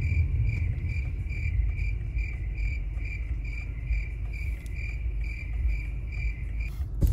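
Cricket-chirping sound effect, the stock awkward-silence gag: an even chirp repeating about two and a half times a second, which starts and stops abruptly. Under it is the low rumble of a car cabin on the move.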